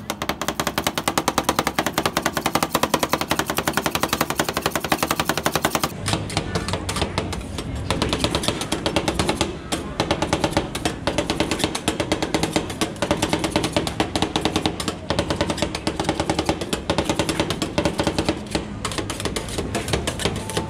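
Two metal spatulas rapidly chopping and scraping ice cream on a steel cold plate for rolled ice cream: a fast, steady clatter of metal on metal.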